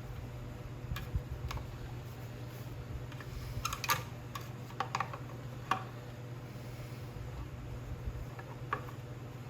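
Scattered light clicks and taps of small engine parts being handled while reassembling the carburetor and fuel lines, the strongest cluster about four seconds in, over a steady low hum.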